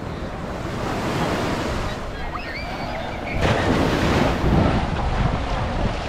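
Ocean surf breaking and washing up a sandy shore, with wind rumbling on the microphone; it grows louder a little past halfway.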